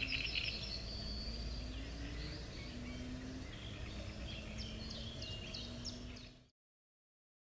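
Outdoor ambience of small birds chirping and trilling over a low steady rumble. The sound cuts off abruptly about six and a half seconds in.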